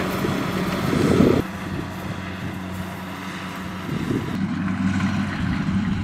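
Kubota DC-70Plus rice combine harvester's diesel engine running steadily under harvesting load, a constant low hum with mechanical clatter over it. It is louder for the first second and a half, then drops off abruptly and builds again near the end.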